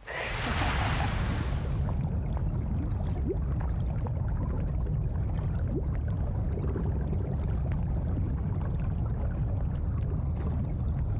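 A water splash or plunge, then a steady muffled underwater rumble with faint bubbling.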